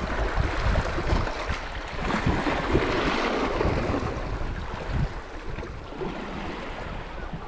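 Sea waves washing over shoreline rocks, a steady surging wash, with wind buffeting the microphone in low rumbling gusts.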